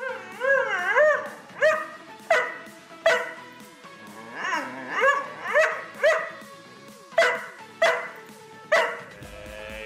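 Doberman pinscher vocalizing: a wavering, howl-like whine that rises and falls for about a second, then a string of about ten short barks and grumbles.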